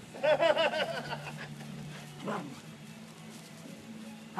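Small dog yipping excitedly, a quick run of about five high yips about a second in, then one more short yip.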